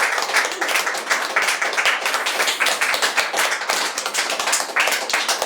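Audience clapping: many hands applauding at once, dense and steady, with a few voices mixed in.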